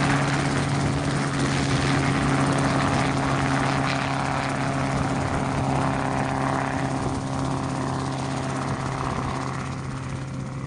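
RotorWay Exec 162F kit helicopter flying off low after takeoff: a steady engine and rotor drone that slowly fades as it moves away.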